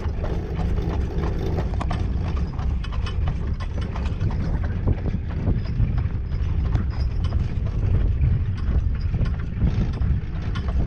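A horse's hooves clip-clopping on a paved path as it pulls a jaunting car, over a steady low rumble from the cart rolling along.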